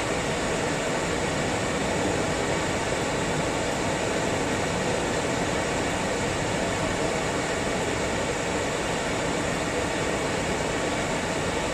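Steady rushing noise inside a moving car's cabin: road and wind noise with the air conditioning running.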